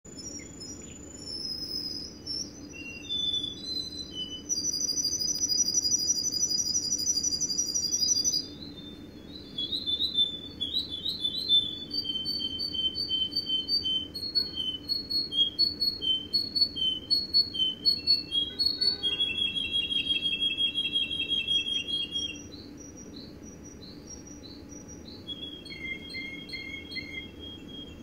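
Russian canary singing a long, varied song: high clear held notes, runs of repeated notes at about four a second, and fast trills, growing softer after about three-quarters of the way through.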